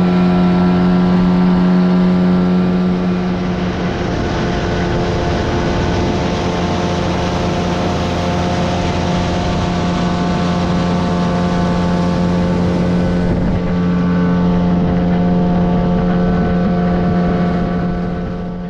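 Outboard motor of an inflatable boat running steadily at speed, one low, even engine tone with water rushing past the hull. The engine eases off near the end.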